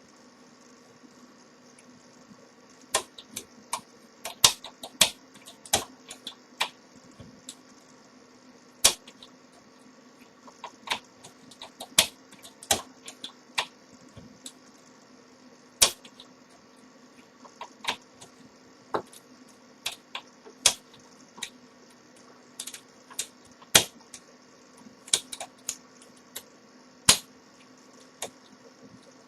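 Pick and overlifting wire working inside a 5-lever mortice lock: irregular sharp metal clicks and ticks as the levers are lifted, starting about three seconds in, over a faint steady hum.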